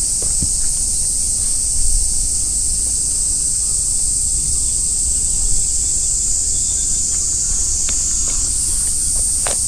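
Steady, high-pitched shrilling of an insect chorus, stepping slightly higher in pitch near the end, with a few faint clicks.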